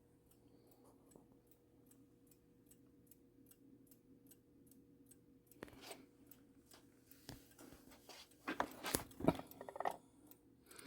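1960s mantel clock movement with a floating balance ticking faintly and evenly, about three ticks a second, running again after oiling and an escapement adjustment. From about six seconds in, louder irregular clicks and rustling join it.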